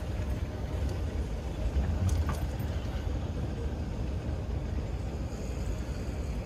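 Moving walkway running underfoot with a steady low rumble, and a couple of faint clicks about two seconds in.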